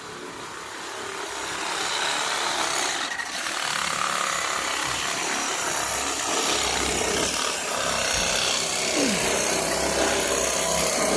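A saw cutting through a wooden board, trimming it back so a decking board will fit; a steady cutting noise that swells up about two seconds in and continues.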